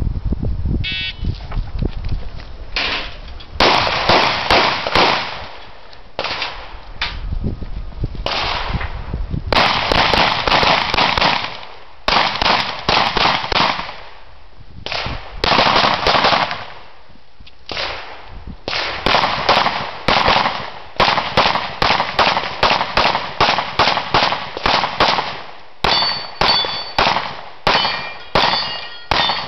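Pistol fire in fast strings of shots with short pauses between them during a practical pistol (IPSC) course of fire. Near the end, steel targets ring as they are hit.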